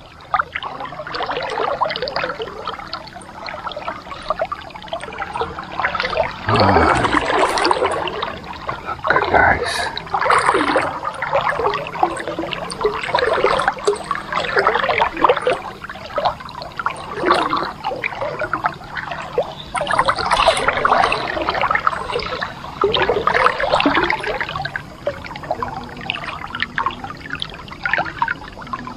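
Water splashing and trickling close by, in uneven surges that come and go every few seconds.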